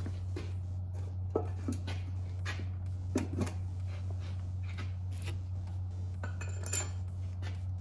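Light metallic clinks and taps as steel head bolts are dropped into a cylinder head seated on an LS V8 block, a handful of separate clicks with a longer rattle near the end, over a steady low hum.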